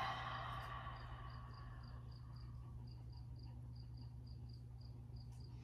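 A long breathy exhale fading out over the first second or so, then faint high chirps, evenly spaced at about four a second, over a low steady hum.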